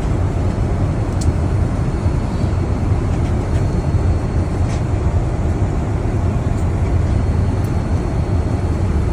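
Steady low rumble of cabin noise inside a Boeing 787 Dreamliner airliner, even and unbroken, with a few faint clicks.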